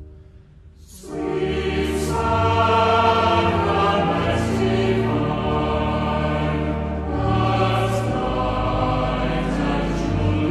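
A choir singing a slow hymn in sustained, layered chords, coming in about a second in after a brief dip.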